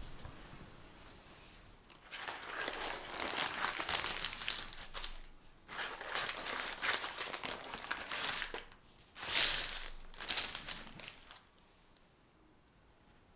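Parchment paper crinkling and rustling as it is peeled and unrolled from a rolled sponge cake. It comes in several bursts, starting about two seconds in, loudest about two-thirds of the way through, and stops near the end.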